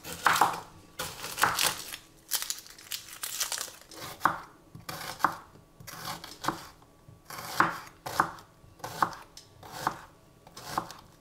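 Shallots being prepared with a chef's knife on a bamboo cutting board: dry papery skin crackling and tearing at first, then the blade slicing through the shallot and tapping the board, about one stroke a second.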